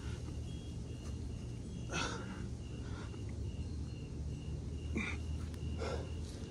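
A man's sharp, breathy exhales during push-ups, three of them, over a steady low rumble, with a high chirp repeating evenly about two and a half times a second.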